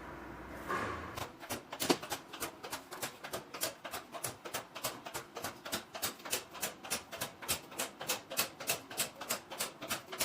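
Electric locks on a bank of vending-machine lockers releasing one after another: a long, even run of sharp clicks, about five a second, beginning about a second in, with one louder click just before the second second.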